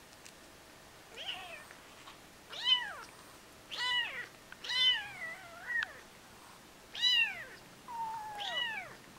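Three-week-old kittens mewing: about six short, high mews, each rising and then falling in pitch, with pauses between them.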